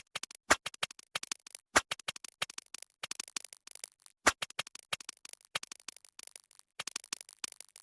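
Sped-up sound effect from a video-editing app: a rapid, irregular string of sharp clicks and crackles, some louder than others.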